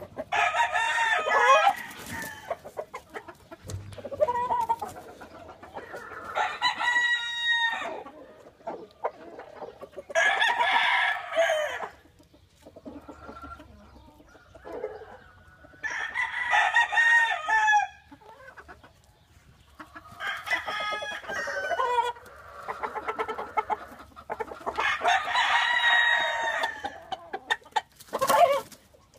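Claret gamecock (claret over blue face cross) crowing again and again, about seven crows, each one to two seconds long, with softer chicken calls in between and a short flurry near the end.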